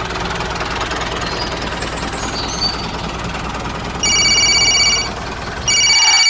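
Small motor of a home-built mini tractor running with a steady noisy whir and low hum. Two electronic beeps, each about a second long, sound about four seconds in and again near the end.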